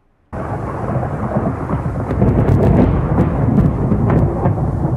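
Thunder rumbling loudly with sharp crackles over a steady rain hiss, starting abruptly about a third of a second in.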